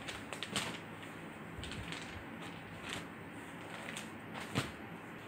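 Rustling and light handling noises of folded silk sarees and paper catalog cards being moved about on a table: scattered soft rustles with a few sharper clicks, one about half a second in and another near the end.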